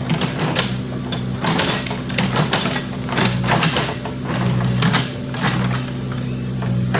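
Backhoe loader's diesel engine running steadily, with repeated short knocks and clatter as the machine works soil.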